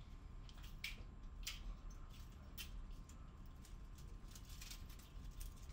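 Soft, irregular footsteps of a person creeping along a hallway, faint light ticks about once or twice a second.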